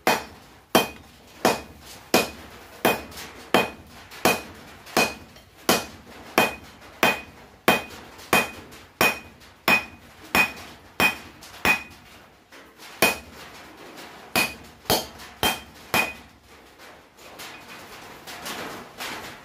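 Hand hammer striking red-hot 1/2-inch round steel bar on an anvil, drawing it out flat. The blows come in a steady rhythm of about three every two seconds, each with a short ring. The rhythm breaks off about twelve seconds in, a few more blows follow, and then the striking stops near the end.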